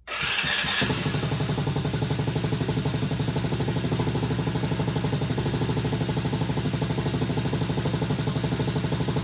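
Small single-cylinder four-stroke engine of a TaoTao 110cc ATV running at a steady idle with an even, quick pulse. It comes in suddenly and sounds brighter for the first second before settling.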